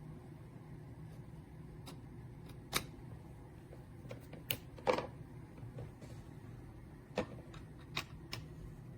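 Scattered, irregular sharp clicks and light knocks, about eight of them, the loudest a little under 3 seconds in and about 5 seconds in, over a low steady hum.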